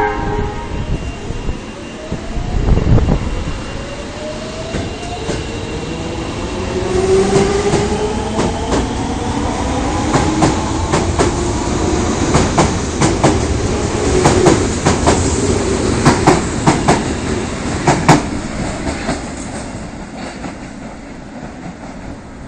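Osaka Municipal Subway 22 series train pulling away. Its traction motors whine, the pitch rising steadily as it accelerates, while the wheels click over the rail joints. The sound is loudest around the middle and dies away in the last few seconds as the train leaves.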